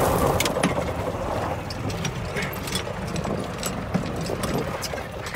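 Golf cart driving over the grass, its small engine running with a steady low drone while the body rattles and clicks. The sound is loudest near the start and eases slightly towards the end.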